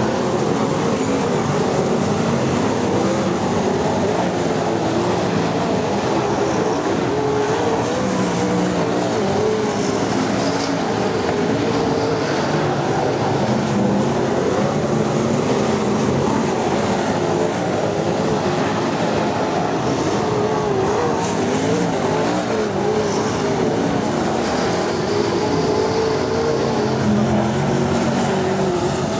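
Winged sprint car V8 engines running steadily on the dirt oval, their pitch wavering up and down with the throttle.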